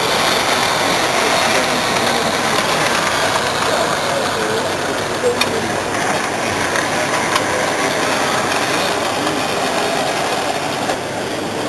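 Busy hall background: steady murmur of many people talking, with a couple of faint clicks.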